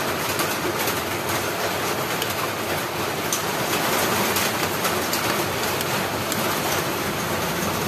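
Metal ladle stirring and scraping a thick, sticky glutinous-rice kalamay mixture in a wok, with a few light scrapes and clicks, over a steady rushing noise.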